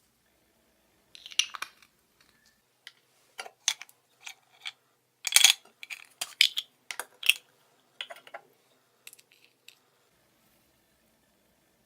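Slime being pressed and stretched by hand, making irregular sticky clicks, pops and squelches, with the loudest cluster around the middle.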